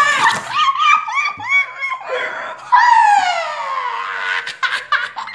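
High-pitched laughing and shrieking: a run of quick rising-and-falling laugh bursts, then one long shriek that slides steadily down in pitch about three seconds in.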